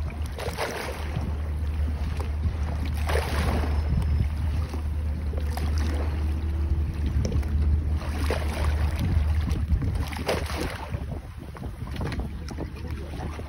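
Sea waves splashing, with surges about a second in, around three seconds, and twice more near the end, over a steady low rumble of wind on the microphone.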